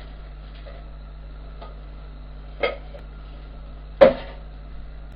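Two sharp knocks of kitchenware at the stove, about a second and a half apart, the second the louder, over a steady low hum.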